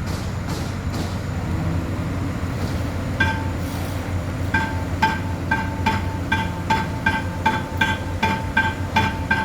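A steady low rumble like an idling engine, joined about three seconds in by regular ringing metallic clinks, two or three a second.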